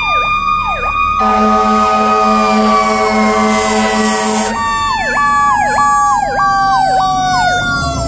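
Fire rescue truck's siren on an emergency run, passing close by: a fast electronic yelp sweeping up and down, a long blaring horn blast from about one to four and a half seconds in, and a steady siren whine that slowly falls in pitch as the truck goes past.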